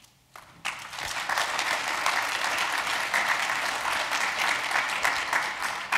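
Audience applauding: many people clapping together, starting about half a second in and holding steady.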